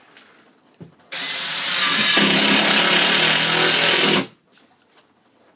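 A power driver running for about three seconds, driving a screw into cement backer board, and stopping abruptly. A short knock comes just before it starts.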